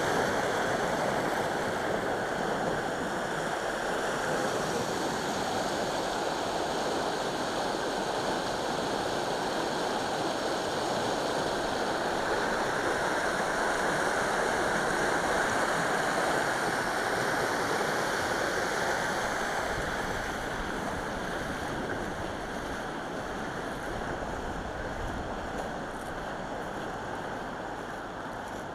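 Turbulent water rushing out of a small hydroelectric plant's turbine outlets into the tailrace channel, a steady churning rush that grows fainter over the last several seconds.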